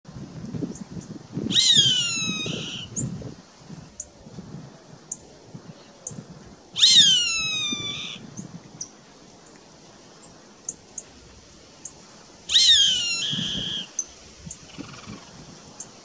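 Roadside hawk calling: three drawn-out calls that fall in pitch, about five seconds apart.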